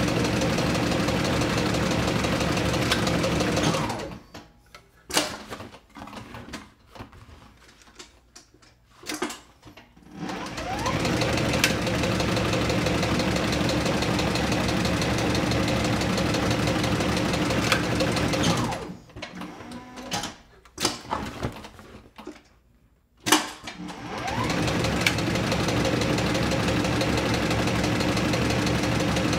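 Sewing machine stitching leather, running steadily. It stops twice, about four seconds in and again near nineteen seconds, for about six seconds each time, with a few clicks and knocks in the pauses, then runs on.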